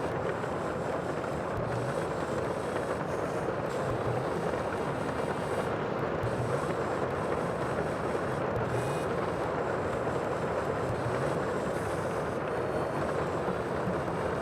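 Sea ambience: a steady, unbroken rushing noise of water, with a faint low rumble underneath.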